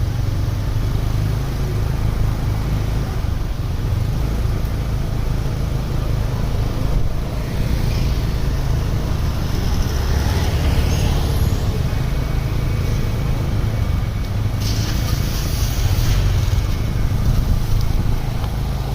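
A bus engine running with heavy road traffic noise, and a short burst of air hiss lasting about a second and a half, around fifteen seconds in.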